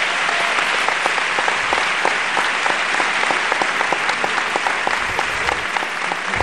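A large theatre audience applauding, a dense steady clapping that eases slightly near the end.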